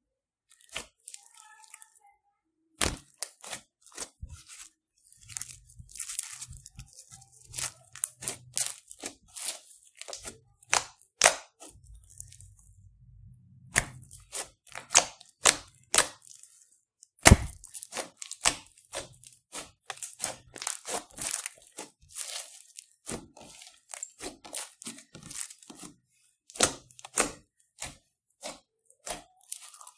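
Slime of clear glue, Play-Doh and foam beads kneaded, poked and stretched by hand: irregular sharp crackling and popping, with a couple of short quiet gaps.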